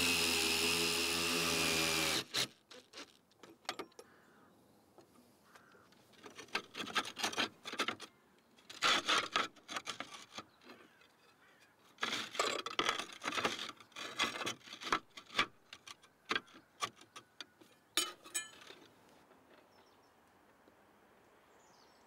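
Cordless drill driving a screw fixing through a solar roof bracket into a rafter, running steadily for about two seconds and then stopping suddenly. After that, repeated clinks, knocks and scrapes of roof tiles being handled and slid back into place around the bracket, in several bursts.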